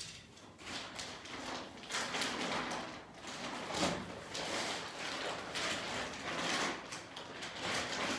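Rustling and crinkling of folded synthetic tent fabric as it is handled and unfolded, irregular throughout and busier in the middle.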